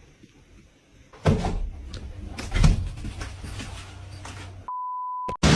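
A run of sharp knocks and bangs over a low hum, the loudest about two and a half seconds in. Near the end comes a short steady electronic beep lasting under a second.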